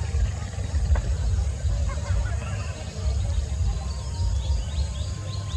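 Outdoor ambience: a fluctuating low rumble, with faint bird chirps in the second half.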